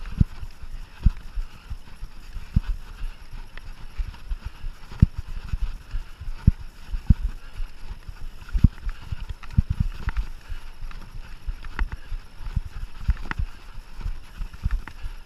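Mountain bike riding over rough trail: irregular knocks and rattles several times a second as it goes over bumps, over a steady hiss of tyres and wind.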